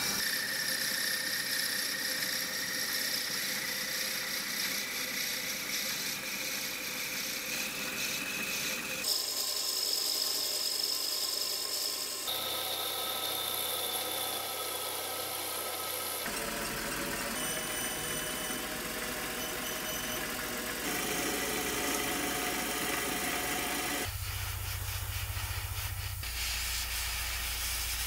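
Small metal lathe running while its cutting tool turns a wooden pawn, with a steady motor whine and the sound of the tool cutting into the wood. The sound comes in several cut-together stretches, each with its own steady pitch.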